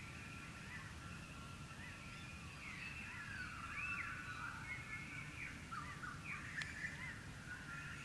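Dawn chorus: many birds calling at once, a mix of steady whistles, short chirps and arching calls, getting busier from about three seconds in.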